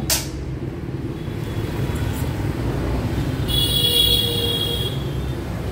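Street traffic of passing motorbikes: a steady low engine rumble, with a sharp click at the very start and a high-pitched tone lasting about a second and a half from about three and a half seconds in.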